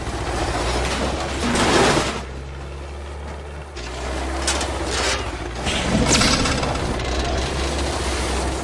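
Film sound mix of a small propeller plane's engine running over a steady low hum, with several loud whooshing swells.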